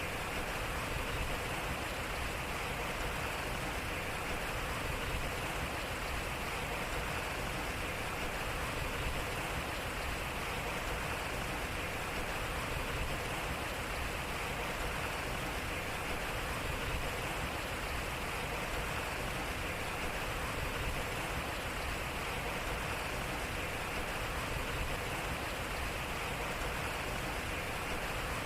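Water running and splashing at a turning waterwheel: a steady rush, with a slight swell about every four seconds as the short recording repeats.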